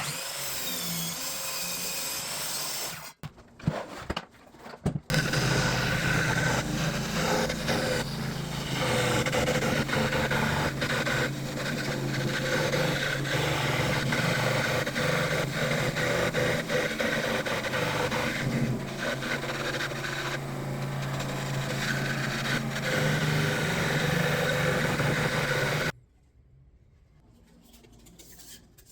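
Power tool working wood: after a few sharp knocks, a steady motor runs with a constant low hum for about twenty seconds, then cuts off abruptly near the end.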